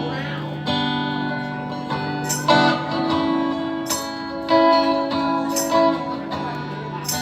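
Instrumental song intro: guitar chords ringing out, with a sharp accent or hit about every one and a half seconds.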